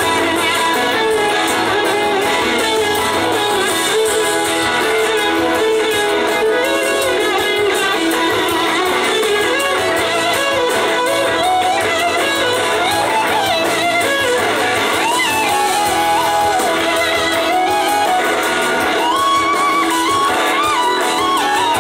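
Live rock and soul band playing, led by an electric guitar solo on a Gibson SG whose notes glide and waver in pitch the way a slide does, over drums and bass.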